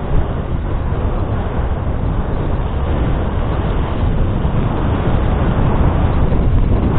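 Dog sled pulled by a four-dog team gliding over snow: a steady, low rumbling hiss of the moving sled, slowly growing a little louder.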